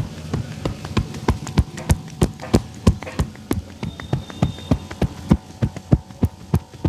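A barber's hands striking a customer in a fast percussive massage: a rhythmic run of dull slaps and thuds, about four a second.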